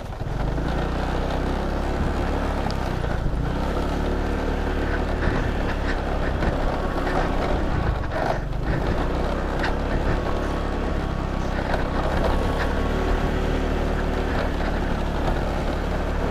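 Small motorcycle engine running steadily at low speed while riding over a rough dirt trail, with rattles and knocks from the bumps and wind noise on the helmet-mounted microphone.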